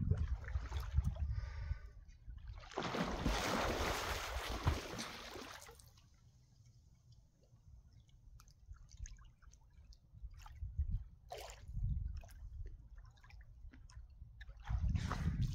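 Water sloshing and splashing, with a louder splash about three seconds in, scattered small clicks and drips, and low wind rumble on the microphone that swells again near the end.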